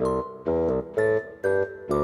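Background music: short keyboard chords that sound like piano, in a bouncy rhythm of about two a second, with a longer held chord near the end.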